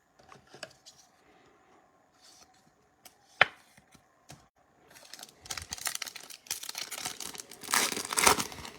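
A foil trading-card pack wrapper is torn open and crinkled, getting loudest near the end. A single sharp click sounds about three and a half seconds in.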